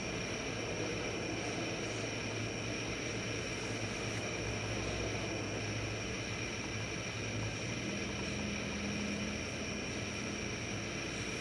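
Steady rushing of heavy rain and wind from a hurricane outside, unbroken throughout, with a faint steady high whine and a low hum under it.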